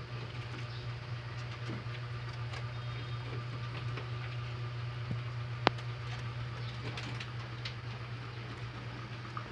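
Baby rabbits chewing fresh vegetables: faint, scattered crunching clicks over a steady low hum, with one sharp click a little over halfway through.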